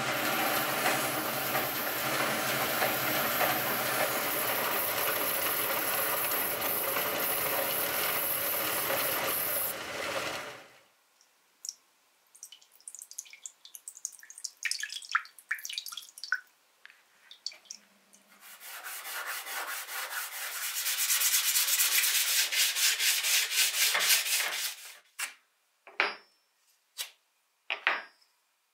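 A belt grinder runs steadily, then stops about ten seconds in. Water pours and drips onto a steel bell guard, giving scattered light splashes. Near the end come several seconds of fast, even rubbing strokes, then a few sharp clicks.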